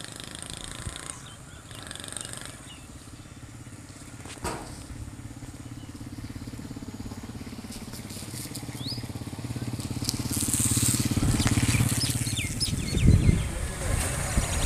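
An engine running steadily with an even low hum, getting louder about ten seconds in, with a few knocks and thumps.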